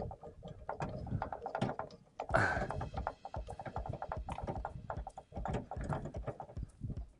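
A rapid, irregular run of small clicks, knocks and rattles from hands fitting and tightening a gas hose connector, with a louder clatter about two and a half seconds in.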